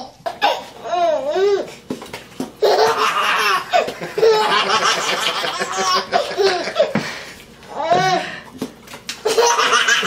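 Infants laughing hard: long belly laughs in repeated fits, with short breaks about two seconds in and again about seven seconds in.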